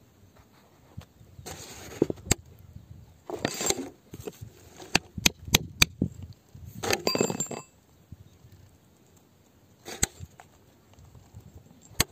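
A metal bar chipping and prying at rock: rough scraping and crunching bursts with sharp clinks, a quick run of four near the middle and single ones near the start and end.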